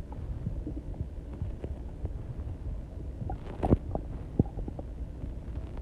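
Internal body sounds: a low, continuous rumble with scattered soft pops and one sharper pop a little past the middle.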